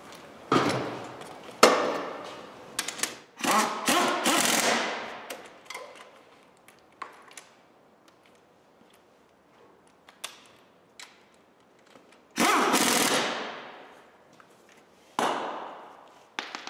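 Impact wrench hammering bolts home on an engine-to-gearbox assembly. It fires in short bursts of about a second, several in the first five seconds and two more near the end, with a quieter stretch of small clicks in between.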